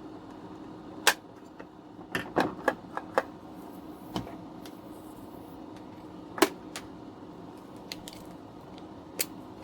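Scattered sharp clicks and taps of small hard plastic parts and tools being handled: one about a second in, a quick run of clicks between two and three seconds, a single click past six seconds and another near the end, over a steady low hum.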